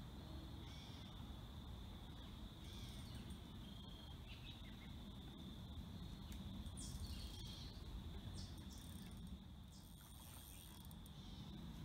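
Steady high-pitched chirring of insects, with a few short high chirps and a low rumble underneath; it dips briefly in level near the end.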